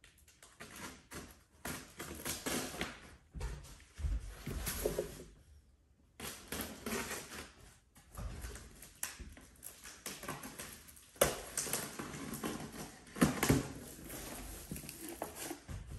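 A large cardboard box being opened by hand: irregular rustling and scraping of cardboard and packing inside, with a few sharp knocks, the loudest about eleven and thirteen seconds in.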